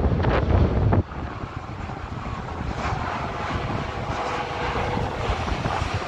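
Wind buffeting the microphone for about the first second, cutting off suddenly; then the steady jet noise of a Boeing 737 MAX 8's CFM LEAP-1B engines passing overhead on approach, with a faint whine in the middle.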